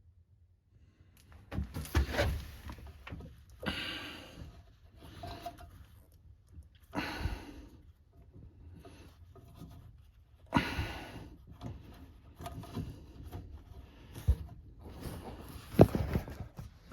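Irregular handling noises: scattered knocks, rubs and rustles, with one sharp knock near the end.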